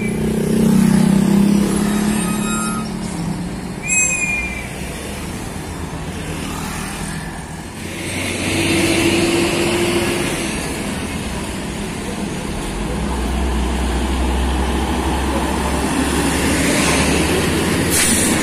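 Heavy diesel trucks in traffic: a Hino truck-and-trailer's engine rumbling as it pulls away, a short high brake squeal about four seconds in, then a deeper rumble building as more trucks approach, with a burst of air-brake hiss near the end.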